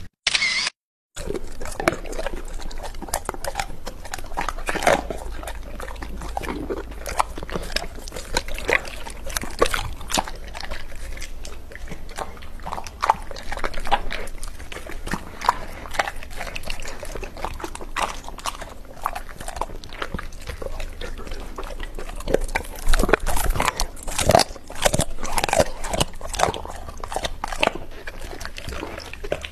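Dog eating raw chicken: continuous wet chewing and slurping in dense, irregular clicks, starting about a second in and growing louder for a few seconds near the end.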